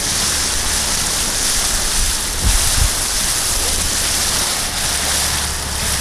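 Water rushing and splashing along the hull of a small inflatable boat under way, with its outboard motor running underneath and wind on the microphone. A couple of low bumps come about two and a half seconds in.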